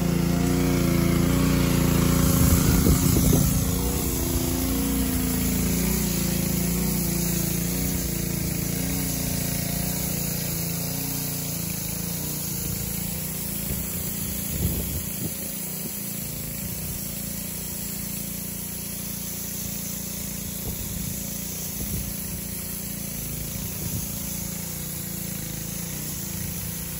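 An engine running steadily. Its pitch shifts over the first few seconds and then holds, with a steady hiss over it.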